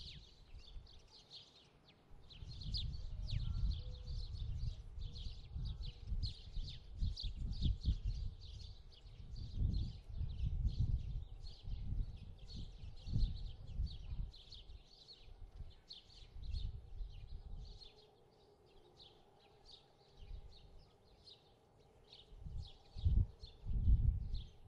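Small birds chirping in quick, repeated short notes, with an uneven low rumble coming and going underneath.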